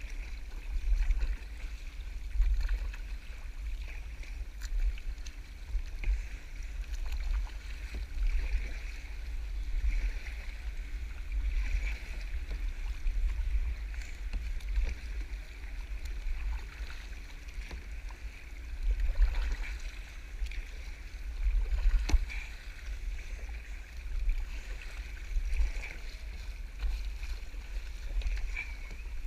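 Kayak being paddled on the sea, the water swishing and splashing with the strokes every couple of seconds. A steady low rumble of wind on the microphone runs underneath.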